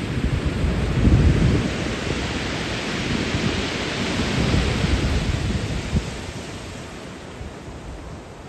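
Ocean surf breaking and washing up a pebble beach. The hiss swells about three to five seconds in and fades toward the end, with low rumbling gusts of wind on the microphone.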